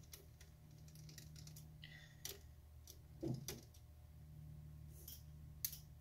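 Small screwdriver turning out a battery screw in a laptop's plastic base: a few faint, scattered clicks and ticks over a low steady hum.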